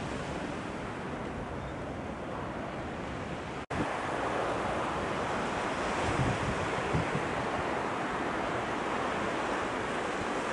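Steady rushing of wind on the microphone mixed with the surge of the fast tidal current in the Naruto Strait. The sound drops out briefly about four seconds in and comes back a little louder, with a few low wind thumps on the microphone.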